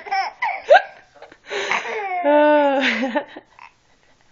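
Baby laughing in short squealing bursts, then a longer drawn-out laugh that goes quiet shortly before the end.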